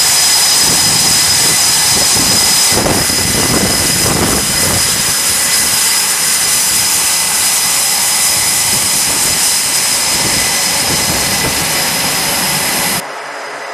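F/A-18 Super Hornet jet engines running on a carrier flight deck: a loud, steady roar with a high, steady whine. It drops off suddenly near the end.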